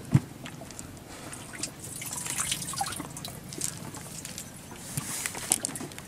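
Water dripping and trickling from a wet cast net as it is gathered up and piled on the wooden boat's planks, with small scattered clicks and splashes. A single sharp thump just after the start is the loudest sound.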